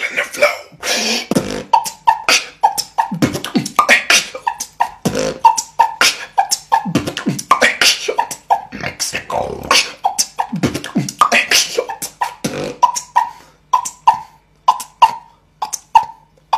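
Solo beatboxing: fast percussive mouth sounds with a short pitched pop about twice a second, thinning to sparse, spaced hits over the last few seconds.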